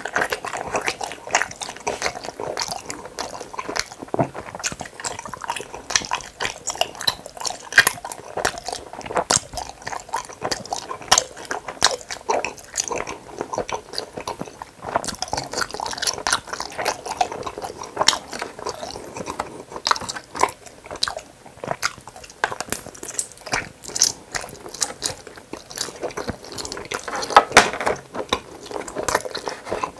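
Close-miked chewing of gummy hamburger candies: a steady stream of short, sticky mouth clicks.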